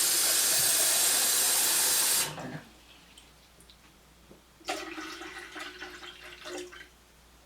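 Water pouring into an electric kettle, loud and steady, cutting off a little over two seconds in. A few seconds later come fainter knocks and clatter.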